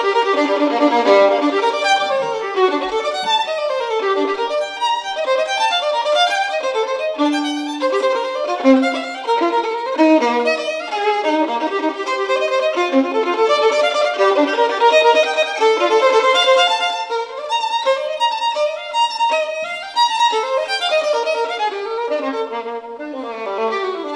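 Solo unaccompanied violin sight-reading a fast passage of rapid running notes. Near the end the line steps down to the instrument's low range.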